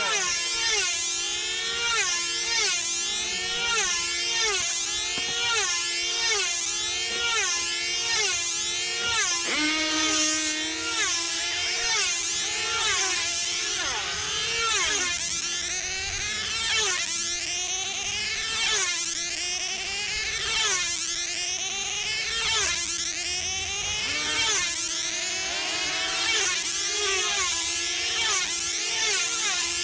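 Several control-line team-racing model aircraft engines (2.5 cc two-stroke diesels) whining as the models fly round the circle, the pitch rising and falling again and again as each model passes.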